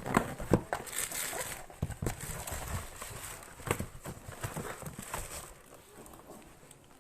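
Irregular knocks, clicks and rustling as items are handled and taken out of a packed box, with plastic wrapping rustling now and then.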